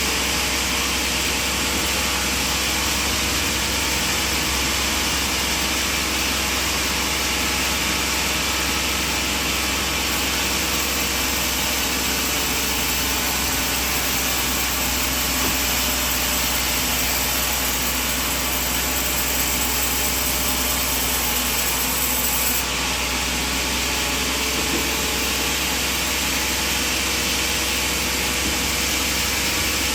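Sawmill machinery running steadily: a constant low mechanical drone with a high hiss over it.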